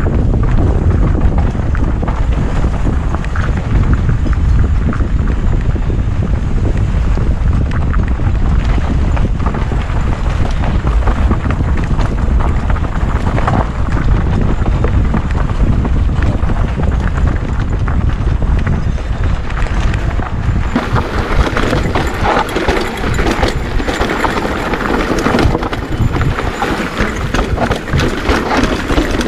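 Wind buffeting the microphone on a mountain-bike descent, over the steady rattle and crunch of tyres on a dirt trail. About 21 seconds in the wind rumble eases and the clatter of the bike over rough ground becomes louder.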